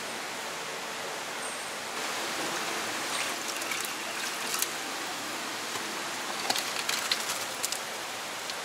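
A steady hiss runs underneath, with scattered light metal clinks and knocks from about three seconds in as a wire strainer on a long wooden handle is worked in a steaming stockpot of pork offal.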